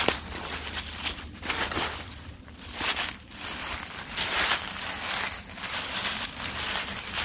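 Footsteps of a person hiking, at a walking pace of a step or two a second.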